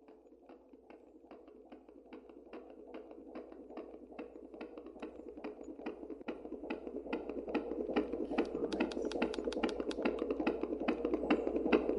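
Baby's heartbeat: a fast, even beating that fades in and grows steadily louder.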